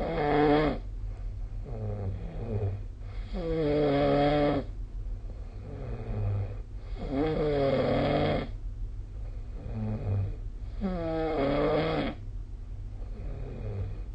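A sleeping person snoring: four loud, rasping snores, each about a second long, come every three and a half to four seconds, with softer breaths between them.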